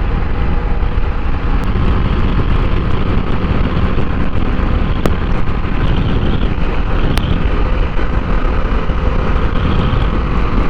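TVS Apache RR310 motorcycle running steadily at road speed, with a heavy, even rush of wind noise on the microphone.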